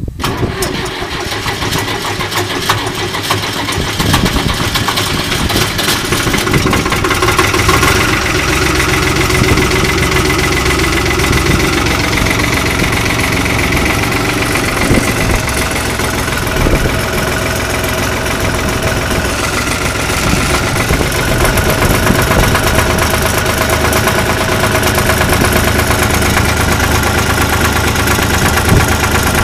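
1974 Long 350 direct-injected diesel tractor engine cold-starting at 35°F: it cranks and fires almost at once, picks up to a steady run about four seconds in, and keeps running. The quick catch comes with a newly rewired Thermo Start cold-start aid.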